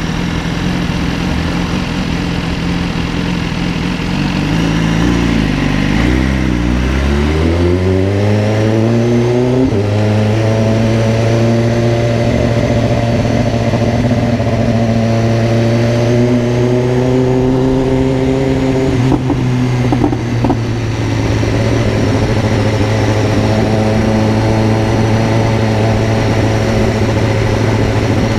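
Car engine with an aftermarket 'granada' exhaust muffler, running under way. Its pitch dips and then climbs as it accelerates between about six and ten seconds in, then holds steady and rises slowly before dropping near twenty seconds in, like a gear change, with a couple of short clicks there.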